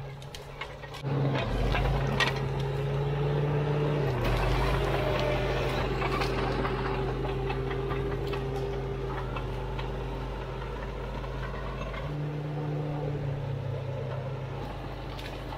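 Caterpillar D4 7U bulldozer's diesel engine working under load as it pushes through gorse. It gets louder about a second in and its note shifts a few times, with sharp clicks and cracks over it.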